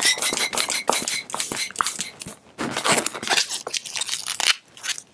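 Latex 160 twisting balloon being handled and worked at its knot end, giving dense, irregular squeaks and crackles, with a thin steady squeal during the first second.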